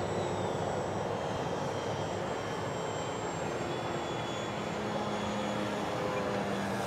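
Electric ducted fan of a Freewing T-33 Shooting Star RC jet running in flight overhead: a steady rushing whine, with faint high tones that slide slightly downward in the first few seconds.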